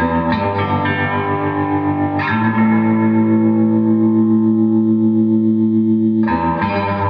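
Electric guitar played through a 1964 Gibson GA-77RVT Vanguard valve amplifier with its original parts and valves. A few chords are strummed, one is left ringing for about four seconds, and new strums come in near the end.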